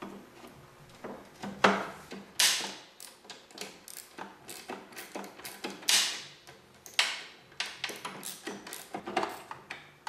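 A wrench and metal parts clicking and clanking on a snowblower's steel drive housing as the bolt and washer holding a drive-shaft bearing are tightened: a run of quick ticks broken by a few louder clanks.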